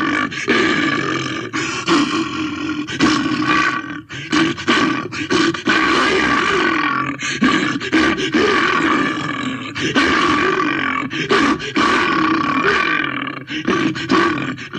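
Bear roaring and growling in long, rasping calls, nearly continuous with brief breaks.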